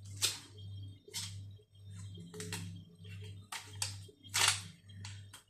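Handling noises from unpacking a GEZE hydraulic overhead door closer: a run of irregular rustles and clicks of packaging and metal parts, the loudest about four and a half seconds in. Under them runs a low hum that pulses about twice a second.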